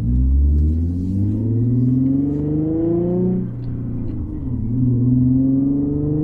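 Infiniti G37S's 3.7-litre VQ37 V6 accelerating hard under load in a manual car, its pitch climbing. About four seconds in the revs drop for an upshift, then it pulls and climbs again in the next gear.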